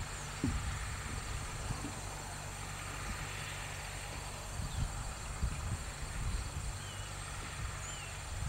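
Crickets and other insects trilling steadily over the faint, steady hum of a distant John Deere 5403 diesel tractor pulling a hay rake. Low rumbles of wind on the microphone come and go, and a couple of short bird chirps sound near the end.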